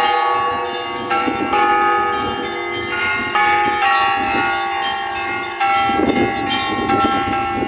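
Church bells ringing a peal, several bells of different pitch struck in quick succession, each one ringing on over the next. In the last couple of seconds a low rumbling noise rises under the bells.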